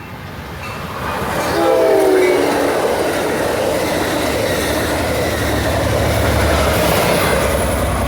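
Amtrak San Joaquin passenger train passing close by: a short horn blast from the leading cab car about a second and a half in, dropping in pitch as it goes past, then the loud, steady rumble and clatter of the train's wheels on the rails.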